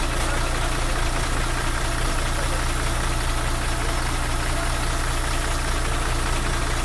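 A vehicle engine idling steadily, under a constant rushing noise.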